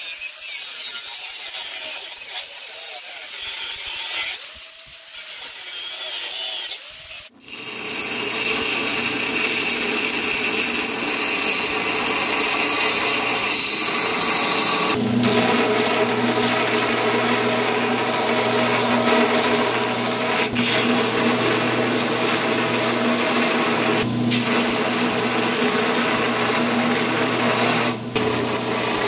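An angle grinder with a cut-off disc cuts through a copper-and-steel cu mai billet clamped in a vise. After an abrupt cut about seven seconds in, a belt grinder runs with a steady hum while the knife blank is ground against the belt to shape its profile, broken by a few abrupt edits.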